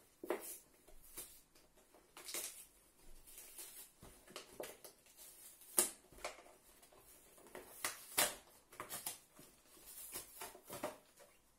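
Cardboard army ration box being torn open by hand: irregular ripping and rustling of the cardboard and its packaging, with two sharper rips past the middle.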